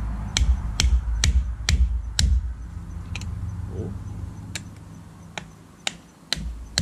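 Hammer blows on a GM 14-bolt axle hub, knocking out the old leaking grease seal: sharp metallic taps, five in quick succession about two a second, then several more spaced-out strikes.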